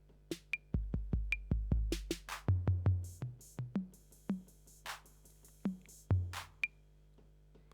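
Roland TR-808 drum machine triggered one hit at a time over MIDI while the note is stepped upward, so the voice keeps changing: a run of deep kick-drum booms, then pitched tom-like hits, short high clicks and hissy cymbal-like hits.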